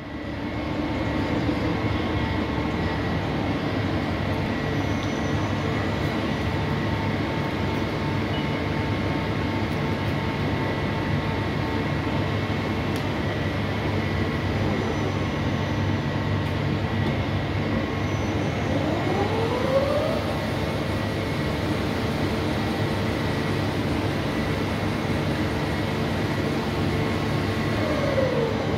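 Mori Seiki SL45B CNC lathe running a machining cycle with coolant flowing: a steady mechanical hum with a high whine over it. The whine rises about two-thirds of the way in and falls near the end, as the machine changes speed.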